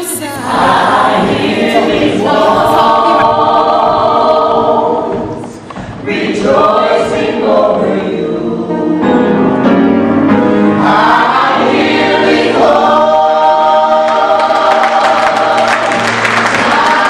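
Gospel choir singing long held chords, with a short dip about six seconds in.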